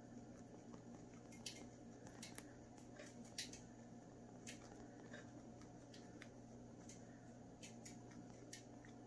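Chinchilla nibbling a stalk of Timothy hay: faint, scattered crisp crunches and clicks, a few seconds apart, over a low steady hum.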